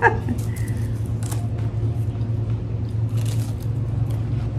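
Two people biting into and chewing thin, crisp sugar-glazed Tía Rosa Doraditas crackers: a scatter of short, crisp crunches between quieter chewing, over a steady low hum.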